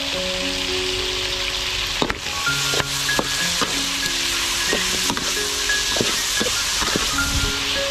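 Chicken pieces sizzling as they fry in oil in a large steel wok, with a metal spatula scraping and clicking against the pan as they are stirred from about two seconds in. Soft background music plays along.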